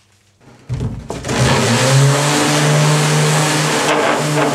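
Electric sander switched on, its motor spinning up to a steady high hum over the hiss of the pad sanding the inside of a wooden canoe hull. The sound cuts off abruptly near the end.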